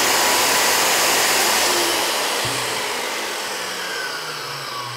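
Makita 5008MG circular saw's 1800 W motor running with the blade fitted and spinning free, no cutting, as a test run after reassembly. About two seconds in the trigger is released and the saw winds down, its whine falling in pitch and level.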